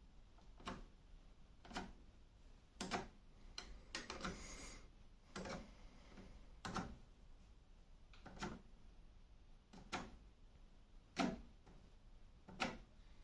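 A series of single sharp clicks, about one every second or so at uneven spacing, with a brief scraping rustle about four seconds in.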